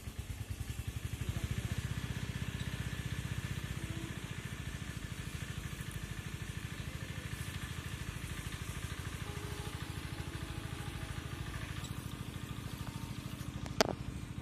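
A small engine running steadily with a fast, even chugging beat. A single sharp click sounds near the end.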